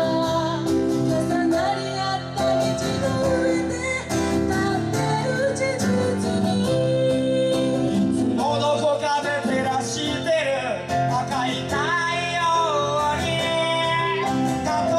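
Live acoustic guitar and piano accompanying a woman and a man singing a slow ballad duet.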